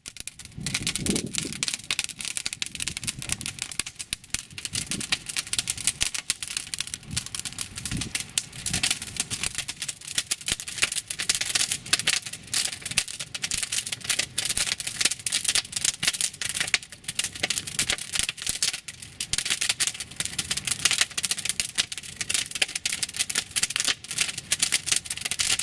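A large fire burning, with dense, irregular crackling and popping and a few low rumbling swells in the first ten seconds.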